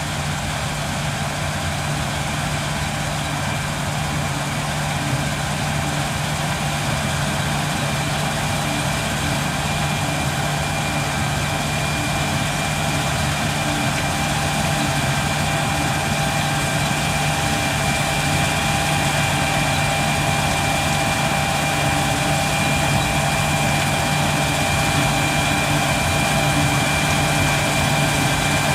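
John Deere combine harvester running steadily while harvesting barley: a constant engine note with a thin high whine over it, growing gradually louder.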